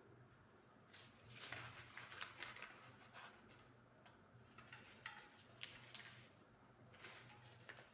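Faint rustling of dry herbs and seeds being spooned out and handled, with a few light clicks, over a faint low hum.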